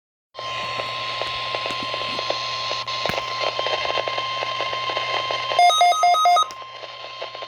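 NOAA Weather Radio warning alarm tone: one steady high pitch near 1050 Hz over crackling radio static and a low hum, signalling that a weather warning is about to be broadcast. About five and a half seconds in, four short beeps, each two notes at once, sound over the tone.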